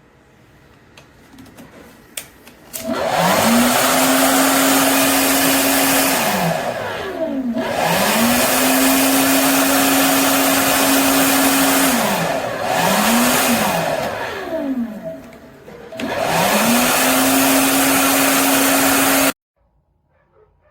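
Wavytalk 1875 W ionic hair dryer blowing, switched on and off four times: each time the motor whines up to speed, runs steady with a loud rush of air, then winds down. The fourth run is cut off abruptly.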